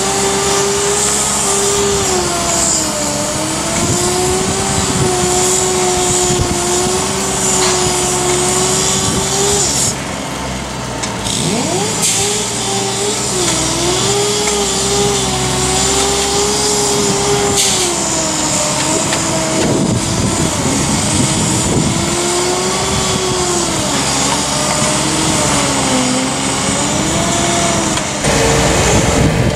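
A heavy engine on construction machinery runs steadily, its pitch drifting up and down every second or two. Near the end it changes to a steadier, slightly higher tone.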